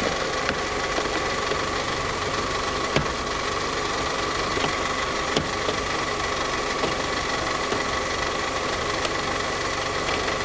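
Vehicle engine idling under an open hood with the serpentine belt running, a steady high whine over the engine noise and a few light ticks. The owner puts the belt squeal down to the tensioner pulley, whose bearings are going out.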